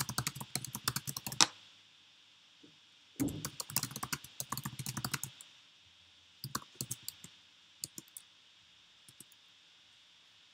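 Typing on a computer keyboard in bursts: a quick run of keystrokes, a second run after a pause of about two seconds, then scattered keystrokes thinning out toward the end.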